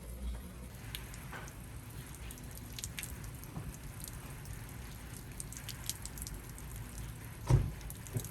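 Scattered water drips and light pattering from watering potted plants, with one dull thump near the end.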